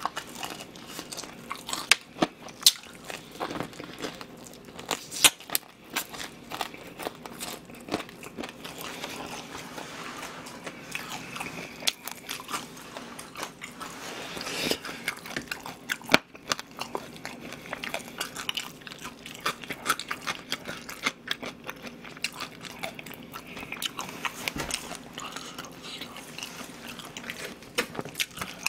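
Crispy battered fried chicken being bitten and chewed close to the microphone: repeated sharp crunches of the fried coating, with chewing between them.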